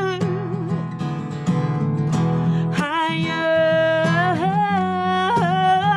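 A woman singing long held notes with vibrato on the word "higher", accompanied by a strummed acoustic guitar.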